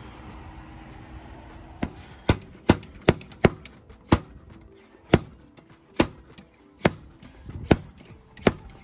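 Slide hammer's sliding weight repeatedly striking its end stop, metal on metal, as the puller draws the failed gimbal bearing out of a MerCruiser Alpha drive's gimbal housing. About a dozen sharp clanks start about two seconds in, about two a second at first, then slowing to about one a second.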